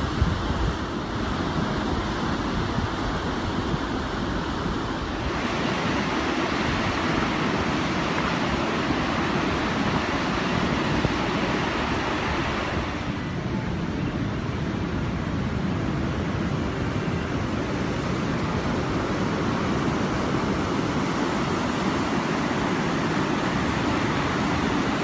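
Ocean surf washing in as a steady rushing noise, with wind on the phone's microphone; the sound shifts abruptly about five seconds in and again about thirteen seconds in.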